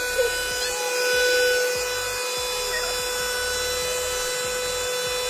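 Electric mixer grinder running steadily with a whine, grinding a gravy paste in its steel jar.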